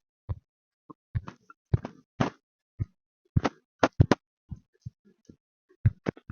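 Irregular run of short, sharp clicks and taps, about three a second with silence between them, typical of computer keyboard keys and mouse buttons being pressed.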